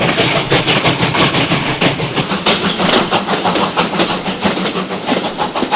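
Steam train running, with a fast, even rhythm of chuffs, growing gradually quieter toward the end.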